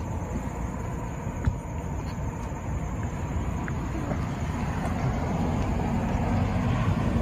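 Steady low rumble of road traffic, swelling a little louder over the last couple of seconds, with one sharp click about a second and a half in.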